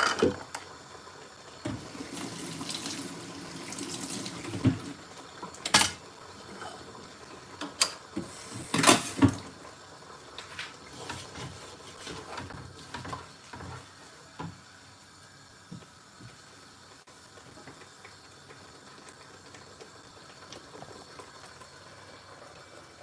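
A kitchen tap runs for a few seconds, then come several sharp knocks. After that there is only a faint crackle from a meat curry simmering in the pot.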